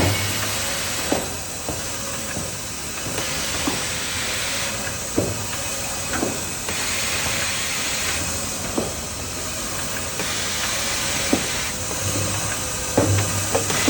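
Automatic maxi roll paper band saw cutting machine running in repeated cycles. A hissing noise swells for about two seconds roughly every three and a half seconds, with scattered sharp knocks.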